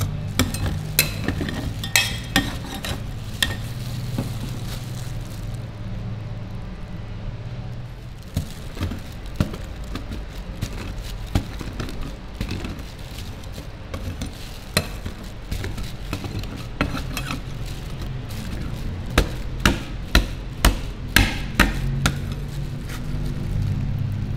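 Metal spatulas scraping and tapping on a steel rolled-ice-cream cold plate as the chocolate-studded ice cream base is chopped and spread thin, with a quick run of sharp taps about three-quarters of the way through. A steady low hum runs underneath.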